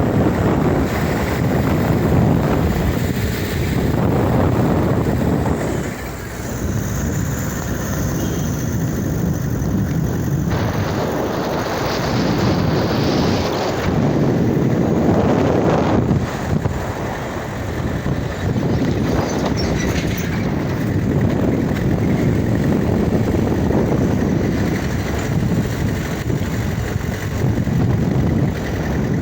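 Wind buffeting the microphone over a steady rushing noise, surging and easing every few seconds.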